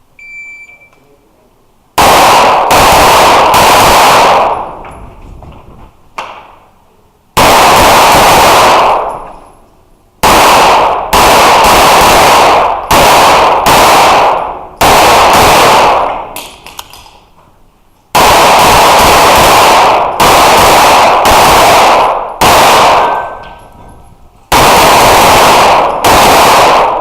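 A shot-timer start beep, then rapid pistol fire in quick strings of shots with short pauses between them, as in an IPSC stage run. Each shot is very loud, with a ringing tail from an indoor range.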